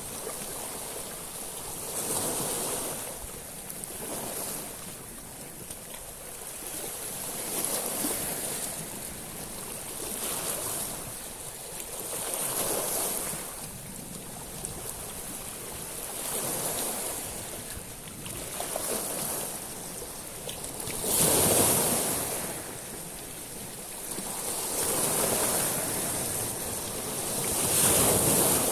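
Sea waves washing in and drawing back over a beach of small stones, swelling and fading about every four seconds, with a larger surge about twenty seconds in.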